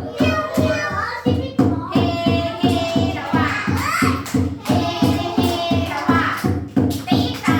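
A children's song playing, with a sung melody over a steady, quick beat.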